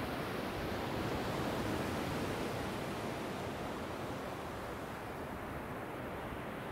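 Surf on a sandy beach: low waves breaking and washing up the shore in a steady rushing hiss that eases off a little about halfway through.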